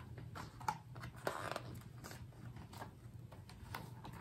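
Pages of a large picture book being handled and turned: quiet paper rustling with scattered small clicks, the longest rustle about a second and a half in.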